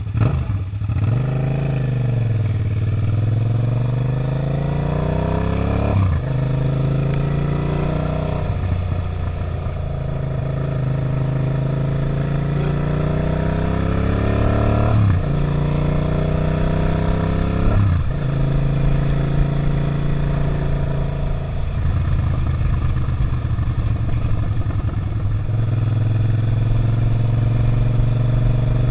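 Suzuki SV650 V-twin motorcycle engine under way. It slows at first, then pulls up through the gears, its pitch climbing and dropping suddenly at each of several upshifts, before holding a steady pitch while cruising near the end.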